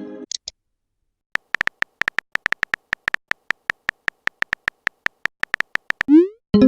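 Phone chat-app sound effects: a run of quick keyboard typing ticks for about four seconds, then a rising swoop and a short chime near the end as a message is sent.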